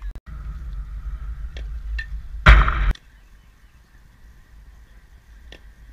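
Wind buffeting the microphone in a low rumble, rising to a loud rushing burst about two and a half seconds in that cuts off abruptly. Then a quieter outdoor background with a couple of sharp knocks.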